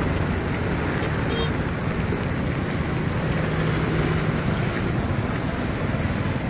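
Wind blowing over the phone's microphone in a steady, loud rush, over a low hum of road traffic.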